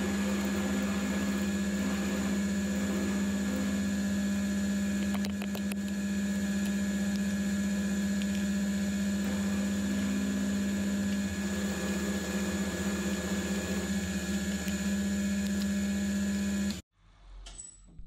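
AL960B mill drill running steadily while an end mill cuts a 3 mm deep keyway into a lawnmower deck spindle shaft: a steady motor hum with a high whine over it. It cuts off suddenly near the end.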